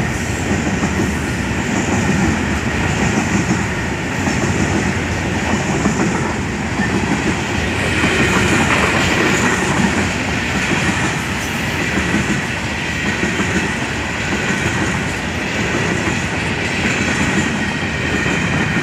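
Freight train of covered hopper wagons rolling past close by: steady heavy rumble and clatter of steel wheels on the rails, with a faint high wheel squeal coming in during the second half.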